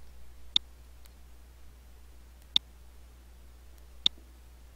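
Three sharp clicks of a computer mouse button, spaced about one and a half to two seconds apart, over a steady low hum.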